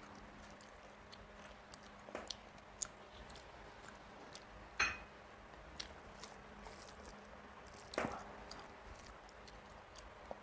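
A person chewing rice with wet mouth clicks and smacks while fingers squish and mix rice on a plastic plate. A few sharper smacks stand out, the loudest about halfway through and another about two-thirds of the way in.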